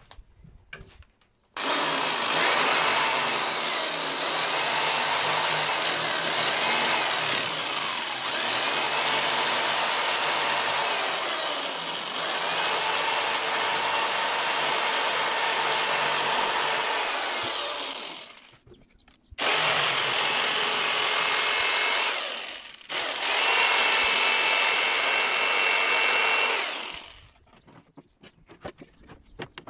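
Corded electric jigsaw cutting through wooden fence slats. It runs in one long cut of about seventeen seconds, then two shorter cuts of a few seconds each with brief pauses between, and stops near the end.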